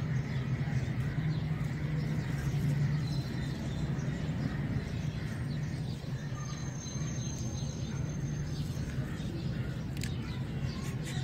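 Outdoor background: a steady low hum with a few faint bird chirps, and a couple of short clicks near the end.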